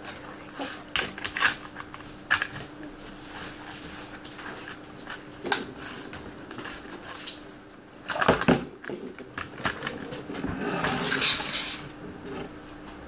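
Hard plastic packaging of kinetic sand being handled on a table: scattered clicks and taps of the clear clamshell lid and green tray, a loud knock about eight seconds in, then a stretch of rustling and scraping.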